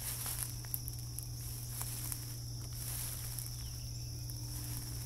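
Footsteps through woodland undergrowth, with a few brief crackles of leaves and twigs, over a steady low hum and a constant high insect drone.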